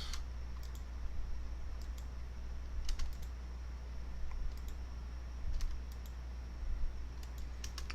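Scattered light clicks and taps, a few at a time with a small cluster near the end, over a steady low hum.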